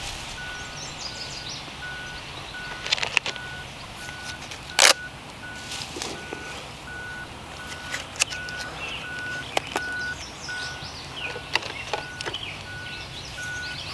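A vehicle's reversing alarm beeping steadily, a couple of beeps a second, under sharp close clicks and rattles of food containers being handled, the loudest about five seconds in.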